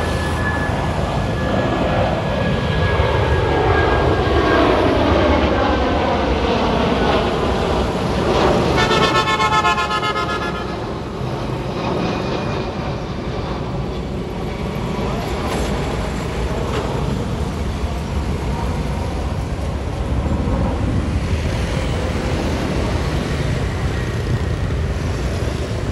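Rolls-Royce Trent 772B turbofans of an Airbus A330-300 climbing out overhead after takeoff. Their whine and rumble fall in pitch over the first few seconds as the aircraft passes, then settle into a steady rumble as it climbs away. A brief pitched sound is heard about nine seconds in.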